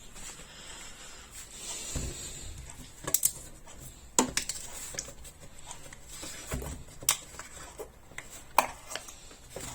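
Scattered clinks and knocks of a milk pitcher and carton being handled as more milk is poured in, with a sharper knock about four seconds in and a few lighter ones later.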